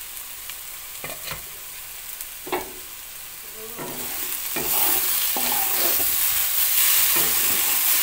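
A wooden spatula stirs and scrapes potatoes in thick spiced masala around a nonstick kadai, in separate strokes. The masala sizzles, and the sizzle grows louder about halfway through.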